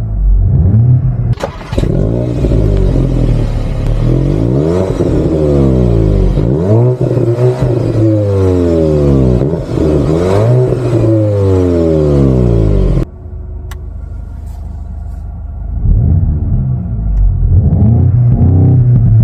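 VW Golf 8 GTI's turbocharged 2.0-litre four-cylinder with the stock exhaust, revved up and down repeatedly, with a few sharp pops and crackles from the exhaust. About thirteen seconds in it drops abruptly to a quieter, steadier sound, then revs rise again near the end.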